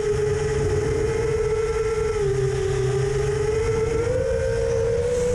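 FPV quadcopter's brushless motors whining at a steady cruising throttle, the pitch wavering gently and rising a little about four seconds in, over a low rush of air.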